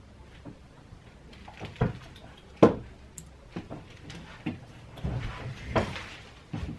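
Irregular soft knocks, taps and clicks from things being handled on a desk close to a microphone, some with a dull low thud.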